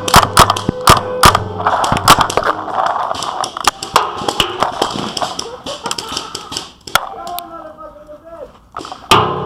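Paintball markers firing in quick, irregular pops, densest in the first few seconds, with a voice calling out faintly near the end and a loud sudden knock just before it ends.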